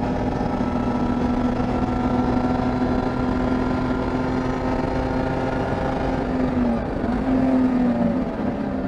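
BMW 325is SpecE30 race car's straight-six engine running hard under load. Its pitch sags slowly, wavers briefly about seven seconds in, and drops to a lower note near the end.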